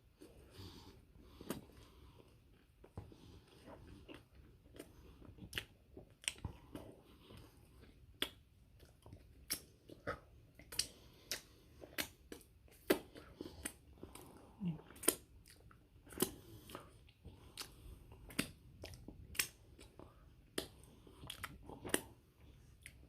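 A person chewing a chili dog with the mouth open: an irregular run of short mouth smacks and clicks, about one or two a second.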